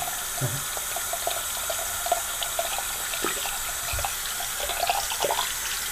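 Bathroom sink faucet running, the stream splashing over hands that work a soggy wad of shredded cardboard toilet-paper tube under it.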